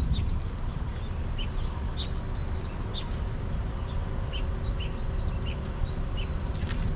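Small birds chirping in short, scattered calls over a steady low rumble, with a few sharp clicks near the end.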